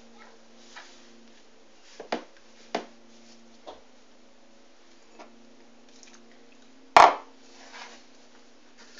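Hands mixing crumbly pastry dough in a bowl: soft rustling with a handful of sharp knocks against the bowl, the loudest about seven seconds in.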